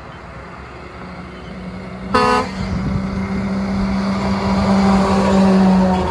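Cat semi truck with a tanker trailer approaching and passing, its diesel engine drone growing louder to a peak near the end. About two seconds in, a single short horn toot.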